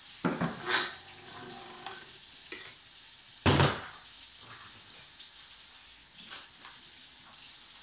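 Plastic Blendtec Rebel blender jar lifted off a Vitamix base with a few clunks, then set down on the counter with a single heavy thud about three and a half seconds in, over a steady hiss.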